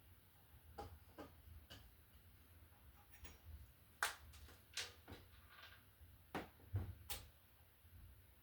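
Scattered light clicks and taps of hands and a small tool working on an open wall receptacle box. About seven in all, irregularly spaced, the sharpest about four seconds in and near the end.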